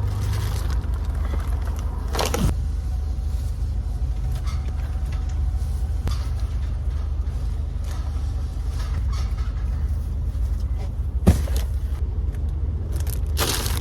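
Car ride heard from inside the cabin: a steady low rumble of engine and road noise, with a couple of short knocks.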